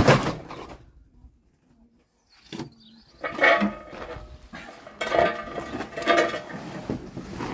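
A heavy rolled vinyl bouncy castle being hauled and shifted across the plywood floor of a van: scraping, rubbing and squeaking of the vinyl, with knocks. It comes in irregular bursts, with a short quiet gap about a second in.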